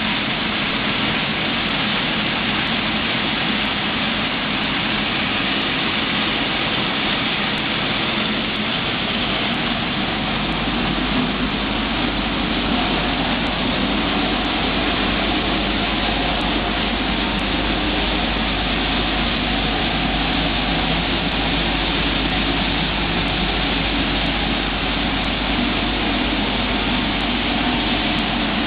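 Pet food processing machinery running with a steady, even noise. A low hum joins in about ten seconds in.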